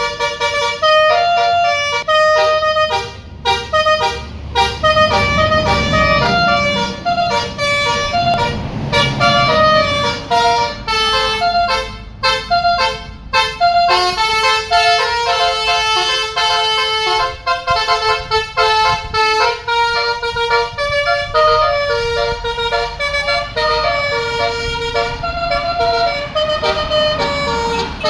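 A bus's 'telolet' multi-tone horn plays a tune of quick stepped notes again and again, over the low sound of an engine running.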